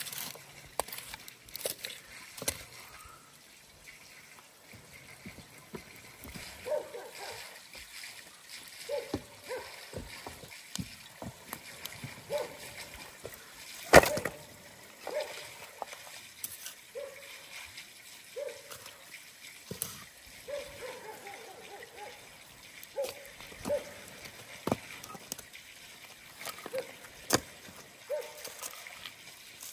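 Wood fire crackling under a lidded cast-iron cauldron, with gurgling from the pot as it boils. One sharp knock about halfway through, a split log being laid on the fire.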